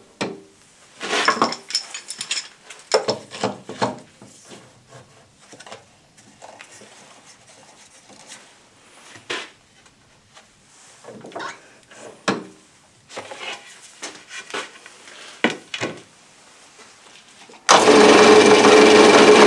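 Wooden boards and a clamp knocked and slid about on a drill press table, scattered knocks and rubs. Near the end the benchtop drill press motor switches on suddenly and runs with a steady hum and whine, the loudest sound here.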